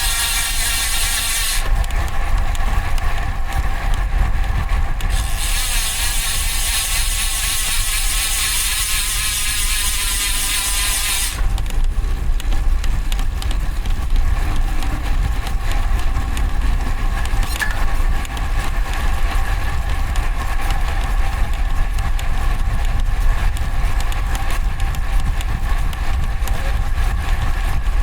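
Wind rumbling on the microphone of a road bike in motion, with steady road noise. Twice, at the start and again for about six seconds from around five seconds in, a loud ratcheting buzz of the DT Swiss rear freehub comes in while the bike coasts, stopping when pedalling resumes.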